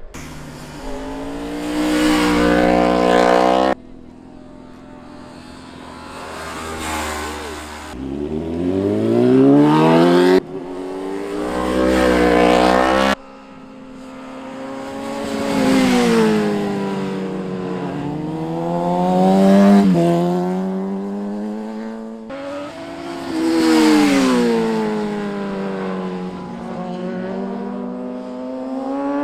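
Sport motorcycles passing one after another, their engines revving up and down through the gears, each swelling and fading as it goes by. The sound cuts off abruptly several times between passes.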